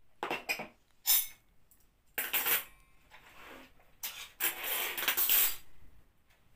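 Tableware clinking and clattering as a table is set: plastic cups, plates and a handful of metal spoons and forks put down in about five separate bursts, the longest a little past the middle.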